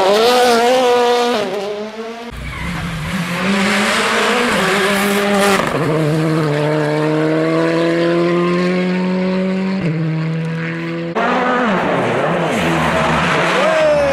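Rally cars' engines at full throttle as the cars pass through corners, one car after another. Each engine's pitch climbs steadily through a gear, then drops at quick gear changes.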